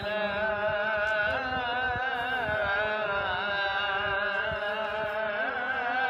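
A man's voice chanting a long, ornamented Arabic-style melodic line, holding notes that slide up and down in pitch.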